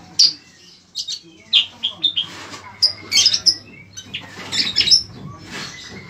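Caged bayeman (cicak kurincang) songbird singing in a run of short, sharp chirps and whistles that come in clusters, busiest about halfway through and again near the end.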